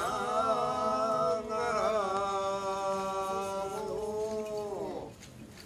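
A man's voice holding one long chanted call that wavers briefly about two seconds in and then slides down in pitch and fades out about five seconds in.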